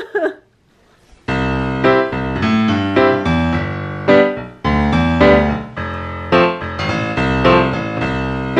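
Background piano music that starts suddenly about a second in, after a short pause, and carries on as a steady melody with chords.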